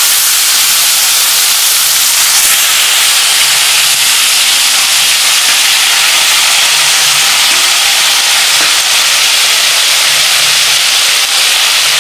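Turmeric-and-salt-coated chicken pieces sizzling loudly in hot mustard oil in a karahi as they go into the pan. The sizzle is steady and grows a little fuller a few seconds in.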